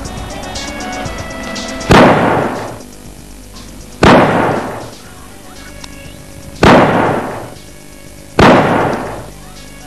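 Four pistol shots, roughly two seconds apart, each a sharp crack with a long fading tail, over background music.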